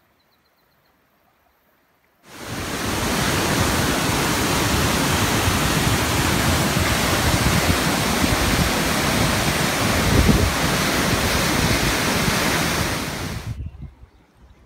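Waterfall pouring into a rock pool: a loud, steady rush of water that cuts in about two seconds in and stops abruptly near the end.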